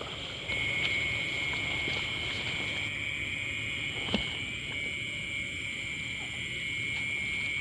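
Night insects, crickets, trilling steadily in a high-pitched drone, with a single sharp knock about four seconds in.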